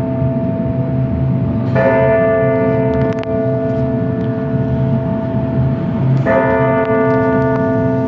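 Old City Hall clock-tower bell striking six o'clock: two strokes of the same pitch about four and a half seconds apart, each ringing on long after it is struck.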